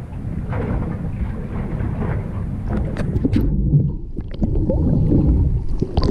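Rumbling wind and water noise on an action camera's microphone, with a few sharp knocks about three seconds in; the sound then turns muffled and low, with small bubbling knocks, as the camera goes underwater.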